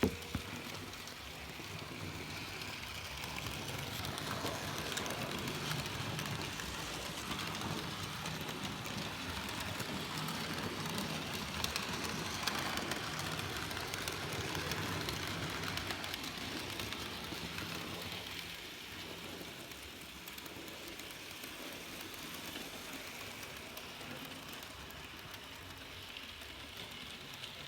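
N gauge model locomotive running on track: its small motor hums under a rattling of wheels on the rails. The sound grows louder as it comes near and fades about two-thirds of the way through as it moves away.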